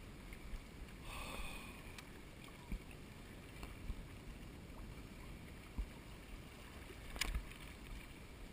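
Faint outdoor background noise, a low rumbling haze, with a few small knocks.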